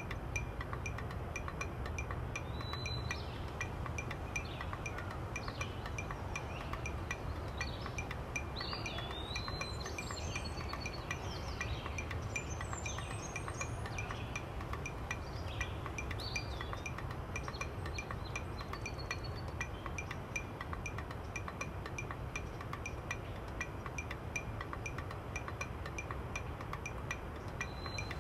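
Light chiming in a steady rhythm, about two to three soft high notes a second, over a low hum, with a few short chirps now and then.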